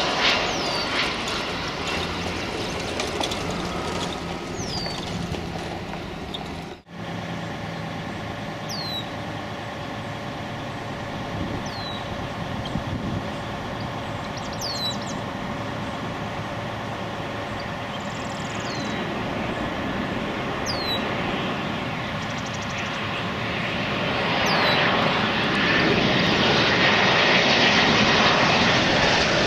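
Jet airliners' engines heard close to the runway. First an Airbus A320 landing, cut off abruptly about seven seconds in. Then an Embraer 190 on final approach, its engines making a steady whine of several tones that grows louder near the end as it comes overhead.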